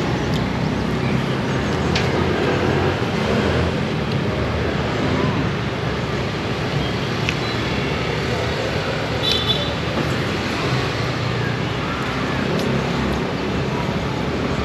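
Steady road traffic noise, with a brief high-pitched tone about nine seconds in.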